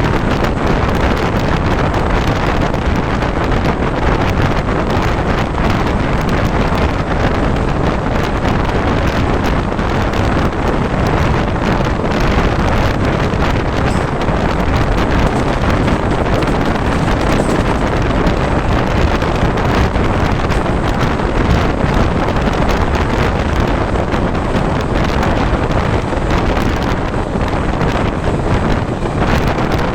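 Steady, loud wind rushing over the microphone on a moving train, mixed with the train's running rumble.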